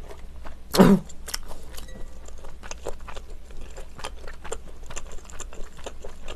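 Close-miked chewing and wet mouth sounds of someone eating rice cake soup with beef and glass noodles, with many small clicks and a spoon working in the bowl. A louder short sound comes about a second in.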